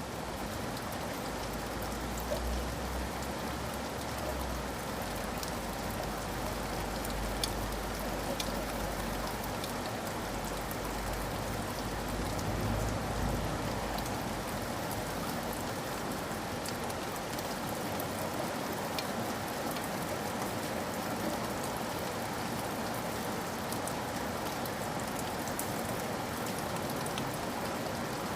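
Steady rain falling, an even hiss scattered with individual drop ticks. A low rumble sits under it for roughly the first dozen seconds, then fades out.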